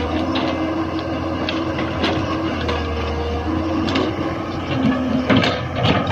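Hyundai wheeled excavator working: its diesel engine drones steadily under load, with a hydraulic whine that changes pitch as the boom swings and the bucket dumps soil and returns to dig. Sharp metallic knocks and clanks from the bucket and boom come now and then, most of them close together near the end.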